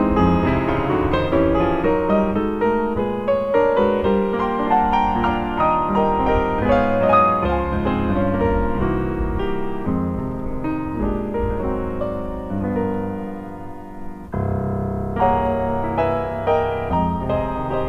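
Solo piano playing a melody over chords in a steady stream of notes. The playing softens gradually toward about fourteen seconds in, then a new phrase begins abruptly at full strength.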